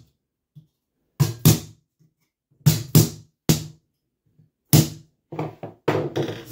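Hammer striking a pin punch to drive fixing pins through an aluminium Zee Bar carpet trim into the floor: about ten sharp taps, mostly in quick pairs, with short silences between.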